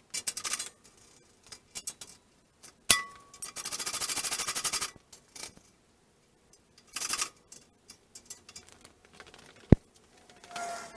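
Metal parts and hand tools clinking and clanging in shop work: scattered sharp clicks, two ringing clangs, and a fast rattling run of clicks lasting about a second and a half.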